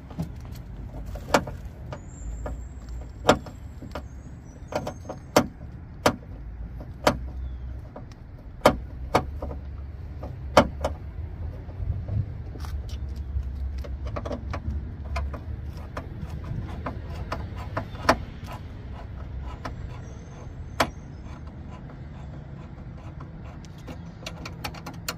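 Irregular sharp metallic clicks and clinks of a screwdriver working a screw out of a steel bracket on a car door's inner frame, over a steady low rumble.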